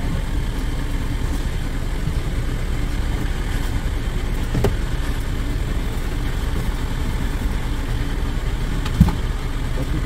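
Semi truck's diesel engine idling steadily, heard from inside the cab, with a couple of light knocks about halfway through and near the end.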